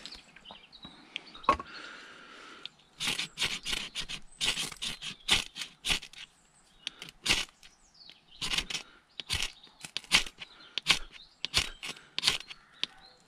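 Knife spine struck along a ferrocerium rod, repeated quick rasping scrapes in several bursts, throwing sparks onto dry grass and leaf tinder to light a fire.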